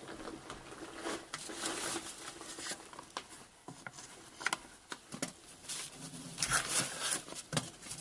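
Faint, scattered taps and knocks in a quiet room over a light hiss, with a few sharper knocks in the second half.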